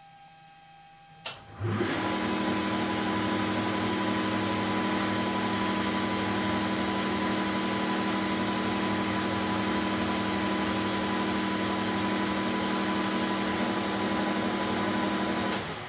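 Weiler Matador SV lathe switched on with a click about a second in. It runs steadily at 2400 rpm, a hum with a steady whine over it, while turning a makeshift shaft from 16 to 14 mm. It stops just before the end.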